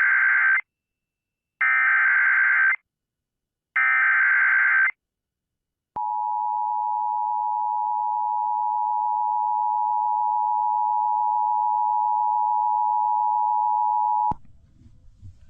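Emergency Alert System activation tones: three short bursts of warbling SAME header data about a second apart, then the two-tone EAS attention signal (853 and 960 Hz together) held steady for about eight seconds before it cuts off. These tones signal that an emergency alert message, here a severe thunderstorm warning, is about to be broadcast.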